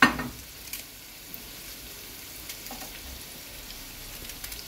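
Onions and carrots sizzling steadily in olive oil in a pot, with a few faint knife clicks as a quince is cut by hand. A short louder sound comes right at the start.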